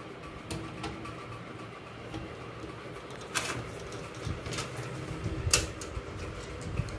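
Screwdriver and screws clicking and knocking against the steel back of a desktop PC case as the power supply is screwed in. The clicks are scattered and irregular, the sharpest about three and a half and five and a half seconds in.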